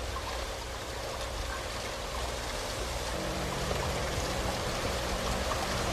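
Steady rushing noise of falling or running water, with a faint low steady hum joining about halfway.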